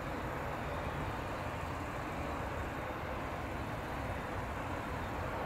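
Steady, even rumble of a Boeing 777-300ER's GE90 jet engines and airflow as the airliner touches down and rolls out along the runway.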